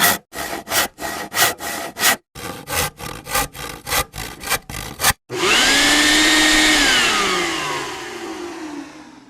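A hand saw cutting wood in quick back-and-forth strokes, about three a second, with a short break after about two seconds. About five seconds in, an electric power tool starts suddenly and runs at a steady pitch, then winds down, falling in pitch and fading away.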